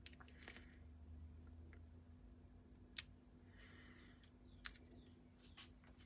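A few faint, sharp clicks over a quiet room with a low hum: a small metal pick prying and picking at the plastic housing of a cut-open car air-quality sensor. The loudest click comes about three seconds in, with a smaller one a couple of seconds later.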